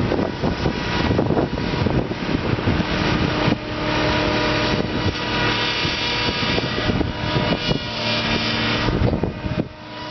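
Farm machinery engine running steadily, with wind buffeting the microphone; it dies away near the end.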